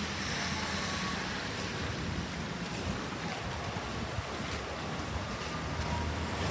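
Steady road-vehicle noise: a low engine hum under an even hiss.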